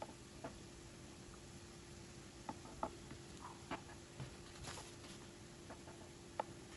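Chef's knife slicing through a soft milk-soaked sponge cake in a glass baking dish: faint scattered clicks and taps as the blade meets the dish, the loudest near the end, with a brief rustle a little before five seconds in.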